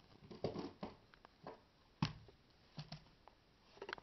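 Faint scattered taps and rustles of small plastic toys being handled and set down, with one sharper click about two seconds in.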